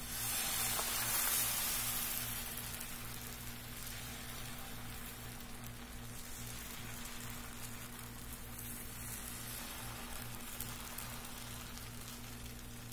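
Thin wheat-flour (atta) dosa batter sizzling as it is poured onto a hot dosa pan and spread out with a spoon. The sizzle is loudest for the first couple of seconds, then settles to a steady hiss.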